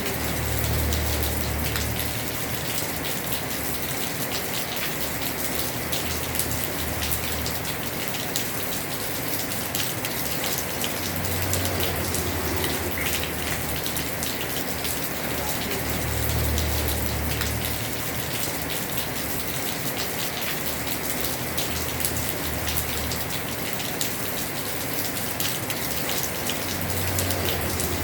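Heavy rain drumming on a house roof: a dense, steady patter of drops. A low rumble swells and fades underneath it every few seconds.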